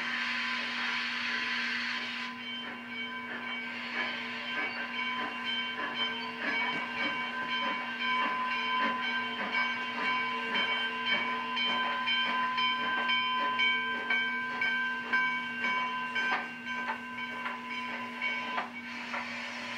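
Steam locomotive departing with its passenger train: a hiss of venting steam for about two seconds, then a steady rhythm of strokes as the engine and coaches roll past, with several steady ringing tones over it.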